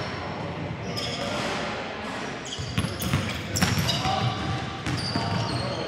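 A basketball being dribbled on a hardwood gym floor, with the bounces coming quicker and louder from about halfway in, and short high-pitched sneaker squeaks.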